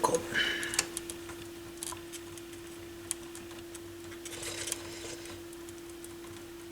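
Faint small clicks and taps of hand work at an electronics repair bench, with two brief soft hisses, over a steady low hum.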